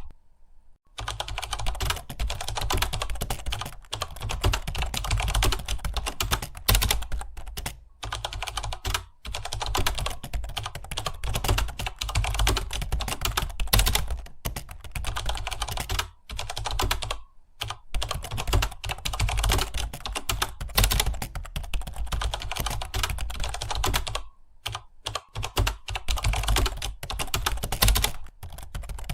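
Fast typing on a computer keyboard: a steady stream of keystrokes with a few brief pauses, at the start, about eight seconds in, around seventeen seconds and around twenty-four seconds.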